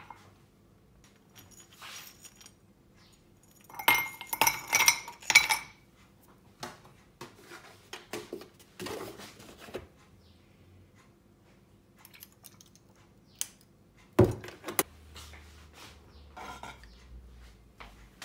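Ice cubes dropped into a glass tumbler, clinking rapidly for about a second and a half. A few seconds later a drink is poured over the ice with a soft hiss, and the glass is set down with one sharp knock.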